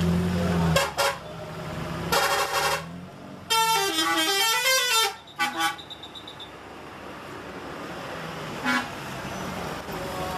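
Telolet bus horns: multi-tone musical horns sounding a few short toots, then a longer melody whose pitch wavers down and up for about a second and a half, then more short toots and one last brief toot near the end. A bus engine runs low underneath at the start.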